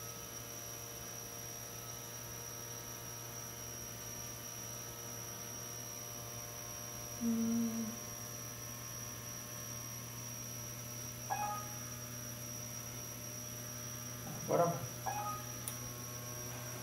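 Steady electrical hum from the powered-up controller board of a homemade CNC router, which the owner puts down to the board sitting loose on top of its metal box. A few brief faint blips about seven, eleven and fifteen seconds in.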